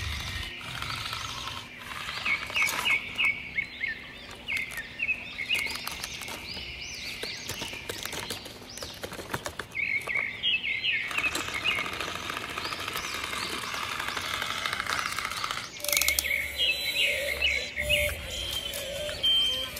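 Small birds chirping in quick repeated phrases, mixed with scattered light clicks and knocks.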